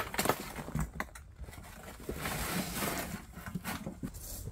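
A metal wheelbarrow being tipped up, with a sharp knock at the start and a few clunks. From about two seconds in, a load of soil slides out of the tray and pours onto the ground with a rushing, crumbling noise that lasts about a second.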